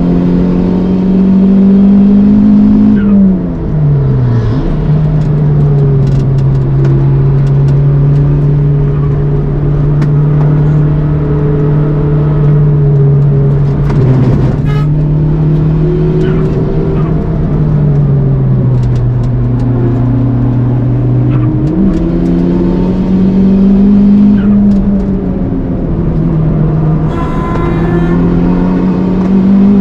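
Turbocharged four-cylinder engine of a Toyota Starlet Glanza V under hard driving on track, its note rising and falling with throttle and gear changes. The pitch drops sharply about three seconds in, holds steady for long stretches, and jumps quickly back up about two-thirds of the way through.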